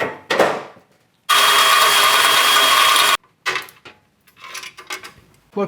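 Electric drill running for about two seconds while drilling out a pop rivet, starting and stopping abruptly. A few short handling clicks come before and after it.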